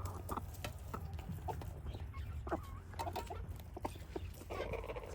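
Flock of chickens clucking softly while feeding, with scattered sharp clicks of beaks pecking at the feed. A steady low hum runs underneath.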